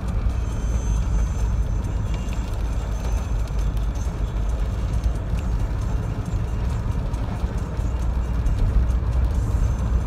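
Steady road and engine noise inside a moving car's cabin: a low, even rumble, with faint scattered ticks above it.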